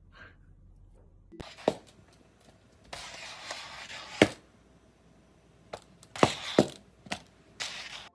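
A cat's cone collar scraping and knocking on a tiled floor. After a faint first second and a half comes an irregular string of sharp knocks, with rasping scrapes between them.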